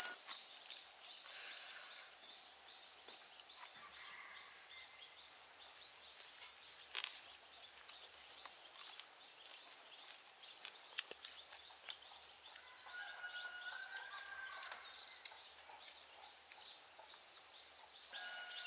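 Faint outdoor ambience: a steady rapid chirping, about four pulses a second, with a few birds calling now and then. A single sharp click comes about seven seconds in.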